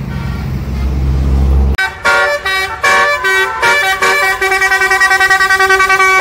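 A low engine rumble, then, about a second and a half in, a bus's telolet basuri multi-tone horn cuts in and plays a melody of changing notes, ending in quick repeated toots.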